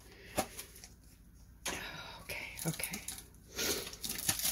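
Packaging being handled and opened by hand: a light click, then from about a second and a half in, several stretches of crinkling and rustling with small clicks.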